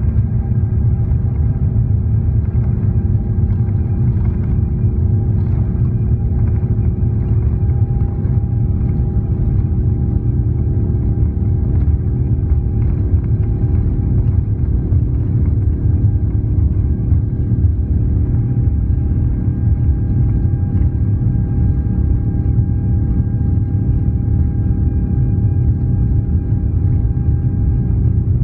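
Airbus A350's Rolls-Royce Trent XWB engines heard from inside the cabin near the wing: a steady, loud low rumble with a few faint steady hums above it as the airliner rolls along the ground before takeoff.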